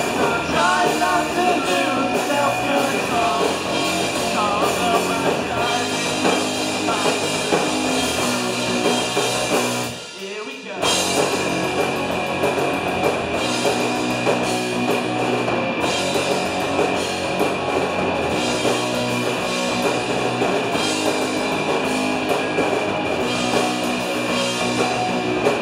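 Live punk rock band playing: electric guitars and a drum kit going full tilt, with an abrupt stop of about a second near the middle before the band crashes back in.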